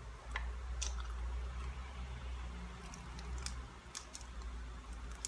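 Person chewing a mouthful of soft boiled banana, with a few short, sharp crackles as a piece of dried boneless danggit fish is torn apart by hand about three to four seconds in.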